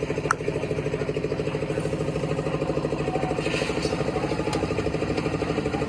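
Engine of site machinery at a concrete slab pour running steadily, with an even, rapid pulsing beat. There is one sharp click just after the start.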